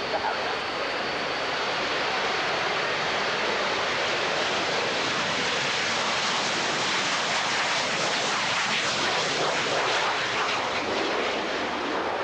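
Harrier jump jet's Rolls-Royce Pegasus engine at high power as the jet takes off and climbs away: a loud, steady jet roar.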